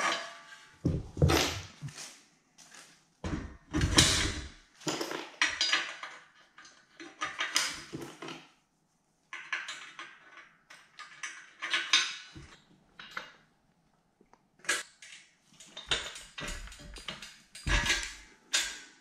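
Hands fitting steel washers, a cotter pin and a wheel onto the axle stub of a cement mixer's frame: irregular clinks and scrapes of small metal parts with short pauses between them.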